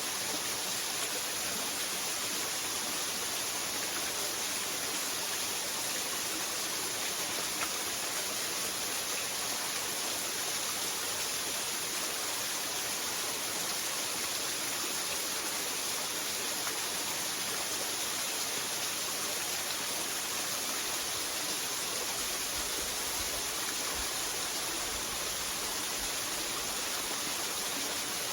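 Waterfall: falling water splashing in a steady, unbroken hiss.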